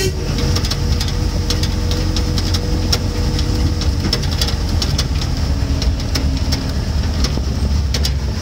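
Steady engine and road rumble of a moving vehicle, heard from on board, with frequent light clicks and rattles.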